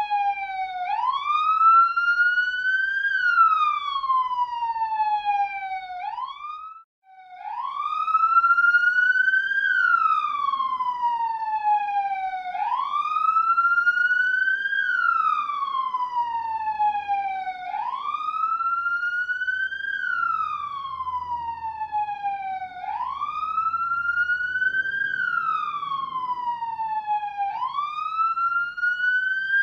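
Police siren wailing, its pitch climbing quickly and then falling slowly, over and over about every five seconds. About seven seconds in it briefly cuts out, then picks up the wail again.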